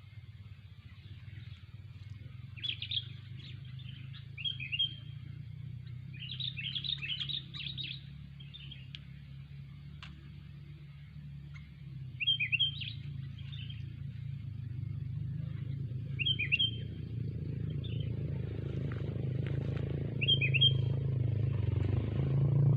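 A songbird giving short, falling chirps in scattered clusters, with a low, steady rumble underneath that grows louder toward the end.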